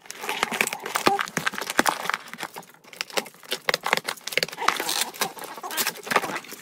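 Packing tape on a cardboard box being slit with a key and peeled off, a dense run of crackles and rips, with a keyring jangling.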